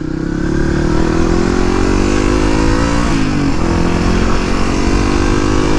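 Suzuki DR250S single-cylinder four-stroke engine pulling under throttle through a Dominator R aftermarket exhaust. The engine note rises for about three seconds, drops sharply at a gear change, then climbs again.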